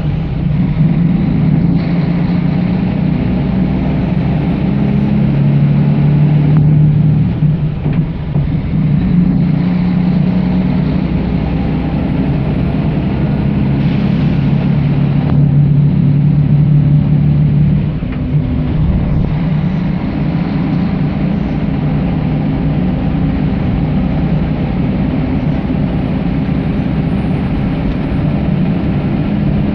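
Mercedes-Benz OM 457 LA six-cylinder turbodiesel of an Irizar i8 coach on an OC 500 RF chassis, running loudly and steadily. The engine note shifts in pitch a few times, with a short drop in level about seven seconds in and again about eighteen seconds in.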